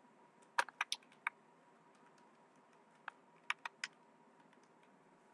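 Computer keyboard keys being typed in two short runs: about five keystrokes around a second in, then four more around three and a half seconds in.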